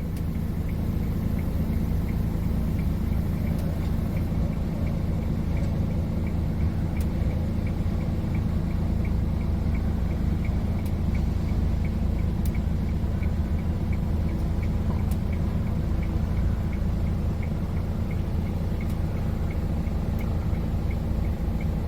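An engine running steadily at an even speed, a low hum with a faint regular ticking over it.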